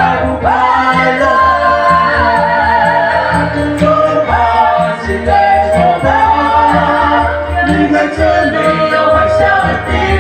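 A mixed group of men and women in traditional Bunun dress singing together through microphones, with several voices at once over a steady backing of bass and beat.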